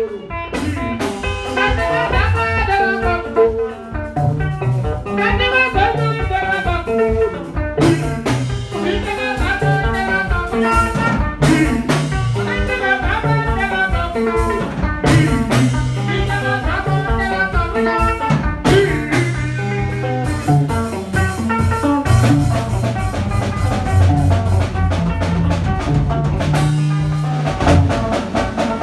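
Band playing live: an electric guitar picks a busy melodic line over an electric bass line, with a steady percussion beat.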